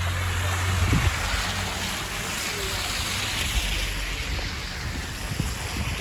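Blizzard street ambience: a steady rush of wind and snowy traffic noise that swells in the middle, with a low engine-like hum fading out about a second in.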